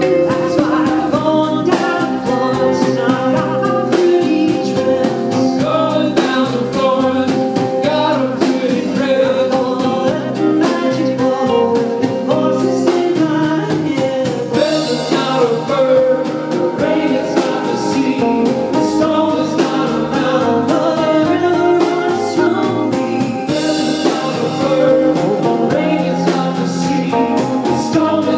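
Live band music: guitars and drum kit playing with a singing voice.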